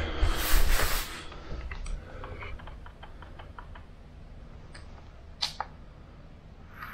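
Handling noise from a DSLR camera and flexible-leg tripod being set on the floor: rustling and bumps in the first second, then a run of small light clicks and one sharper click near the end.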